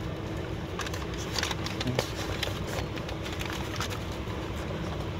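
Scattered rustling and crackling handling noise, loudest between about one and four seconds in, over a steady low hum in a car's cabin.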